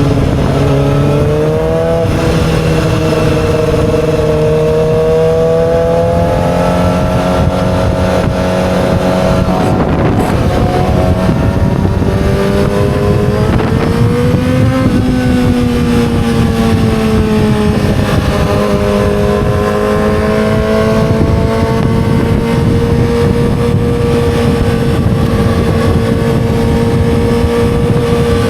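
Yamaha R6 sport bike's inline-four engine running loud and continuously, its note climbing and easing gradually as the throttle changes, with a rise about 15 seconds in.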